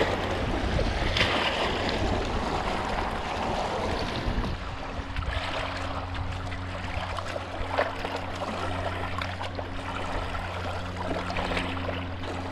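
Lake water splashing as a hooked bass is pulled out of the shallows, then small waves lapping at the shore's edge with a steady low hum underneath.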